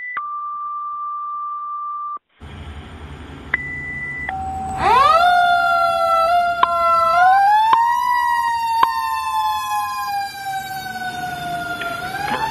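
Fire-company alert tones: a long steady tone, then after a short break more short steady tones over a fire engine's engine rumble. About five seconds in, the engine's siren winds up quickly and then slowly rises and falls as the engine pulls out.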